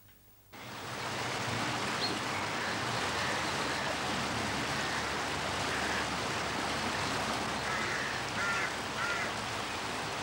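Rushing river water pouring over a weir or waterfall, a steady rush that starts suddenly about half a second in. Near the end a few faint crow caws sound over it.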